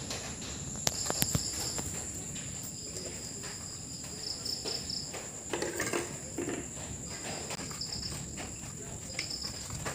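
Light clicks and scrapes of hands and a small screwdriver working on an air conditioner's circuit board and heatsink screws, two sharp clicks about a second in. Behind them runs a steady high-pitched whine with intermittent high chirping.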